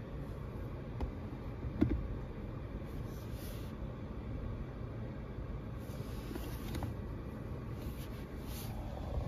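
Low, steady background rumble inside a car cabin, with a short soft knock about two seconds in as a smartphone is set down on the centre console's wireless charging pad, and a few faint taps of handling.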